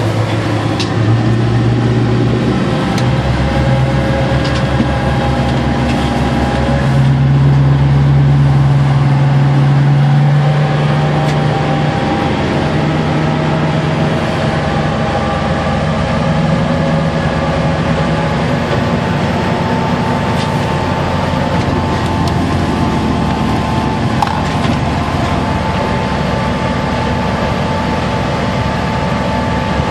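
Small boat's inboard engine running under way, heard from inside the wheelhouse as a steady drone. Its pitch steps up a few times in the first seconds, and it is loudest for a few seconds about a quarter of the way in.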